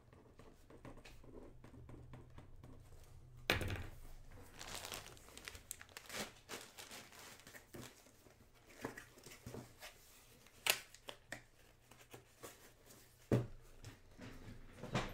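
Plastic bag crinkling and rustling as a bagged jersey and its box are handled, with three sharp knocks: one about three seconds in, the others near the end.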